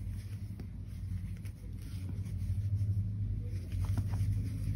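A steady low background rumble, with a few faint soft scratches of yarn being worked with a metal crochet hook.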